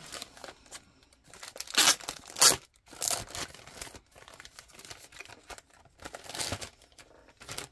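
Clear plastic packaging bag crinkling and rustling in irregular bursts as it is pulled open and a binder is worked out of it, the loudest bursts about two seconds in and another near the end.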